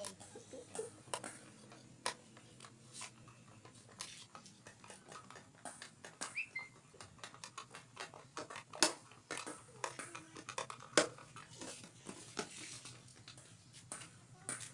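Scattered light clicks, taps and scrapes of hand work on the plastic front headlight cowl of a Honda Blade motorcycle, with a couple of sharper knocks near the middle and a short squeak about six seconds in.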